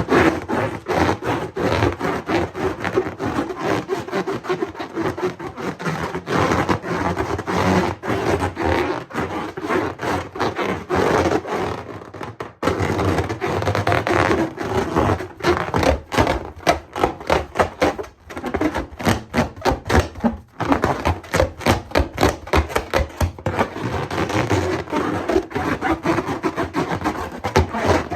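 Rubber balloons being rubbed and handled: a continuous run of quick rubbing and scraping strokes.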